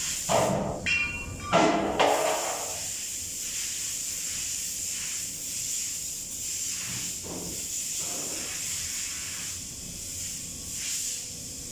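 Compressed-air blow gun hissing, with several loud blasts in the first couple of seconds and a couple of weaker ones later, over a steady high hiss.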